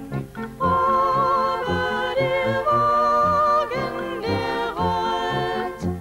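A song: a voice holds long notes with vibrato over an instrumental accompaniment with a steady low beat.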